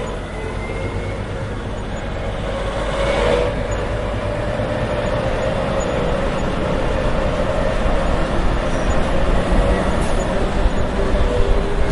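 Diesel train engine running as the train drives along: a steady drone with a held whining tone that slowly grows louder, and a brief rush of noise about three seconds in.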